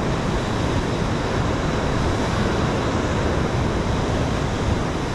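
Big ocean surf washing steadily against the rocks, with wind buffeting the microphone.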